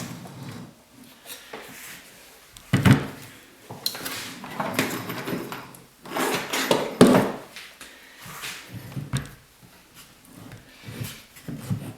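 Handling noise: hard objects, most likely power tools, being moved and set down, giving a series of irregular knocks and clunks, the loudest about 3 seconds and 7 seconds in.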